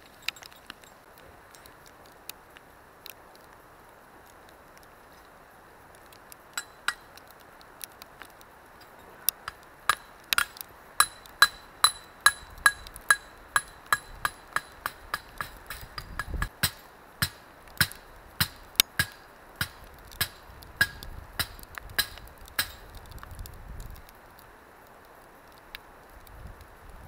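A hammer striking metal: a few scattered blows, then a steady run of sharp ringing strikes at about two a second that stops a few seconds before the end.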